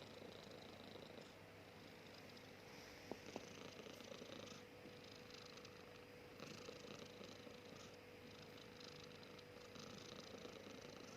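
Faint snoring: slow, raspy breaths that swell and fade about every two to three seconds.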